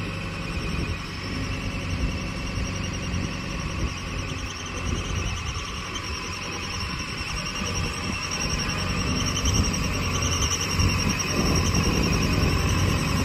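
Case IH JX95 tractor's diesel engine running as the tractor drives, with a steady high-pitched whine over the engine rumble. It gets louder over the last few seconds as the tractor comes close.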